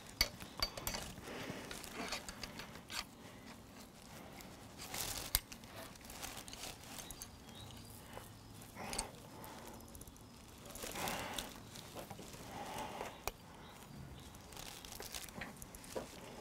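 Quiet handling noises of a rotisserie spit and its metal forks being fitted and clamped into a stuffed, rolled veal breast: scattered light metal clicks and rustling, with a few brief louder scrapes.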